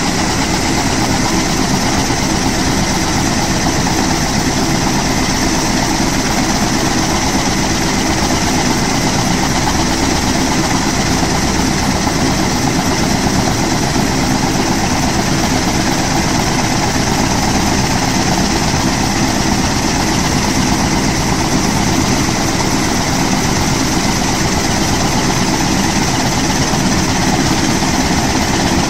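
Kaman K-MAX helicopter running on the ground before liftoff, its turboshaft engine and intermeshing twin rotors turning at a steady idle. The sound is a loud, even drone that holds the same pitch and level throughout.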